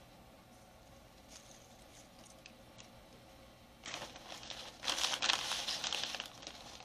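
A few light ticks of tortilla chips being set on a foil-lined pan. Then, about four seconds in, a loud crackling of a plastic bag of tortilla chips and the chips rustling inside it as a hand digs in for more. This lasts about two and a half seconds.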